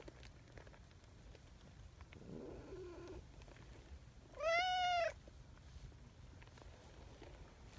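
A tabby cat meows once, loud and clear, with an arched call of under a second a little past the middle. A softer, lower sound comes a second or two before it.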